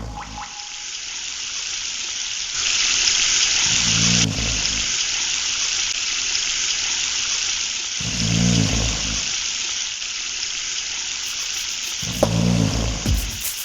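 A steady rushing noise, swelling louder for about two seconds near the start, with a deep low throb about every four seconds, four times in all. A few sharp clicks come near the end.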